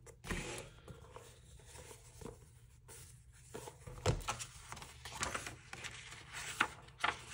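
Quiet handling of a paper diary: soft rustles of paper and card with scattered light taps and clicks, the sharpest tap about four seconds in.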